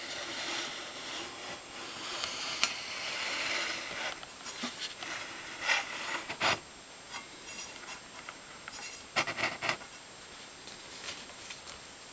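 Rubbing and scraping for the first few seconds, as something is slid and handled on a table saw, followed by a few sharp clicks and knocks around the middle and again later.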